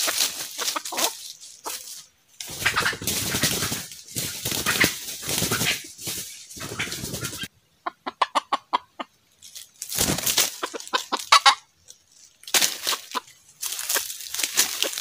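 Junglefowl clucking and cackling, with a fast run of clucks just past the middle, amid wing flapping and rustling in dry leaves.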